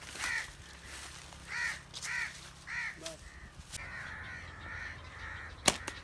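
A crow caws four times over the first three seconds, with fainter bird chatter after. Near the end comes a single sharp snap: a slingshot being shot.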